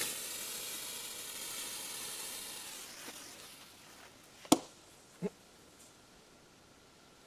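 Lit fuse of a Funke Thunder Cracker D firecracker hissing as it burns, fading away after about three seconds. A single sharp click follows a little past the middle, then a faint knock.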